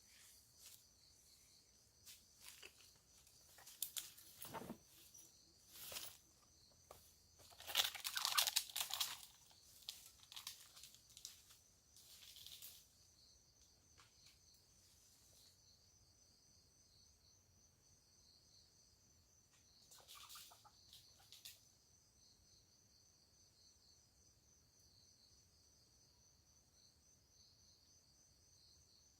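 Chickens rustling and scratching about in dry litter, with scattered crackles and a louder flurry about eight seconds in and another near twenty seconds. Under it runs a steady, high pulsing insect trill.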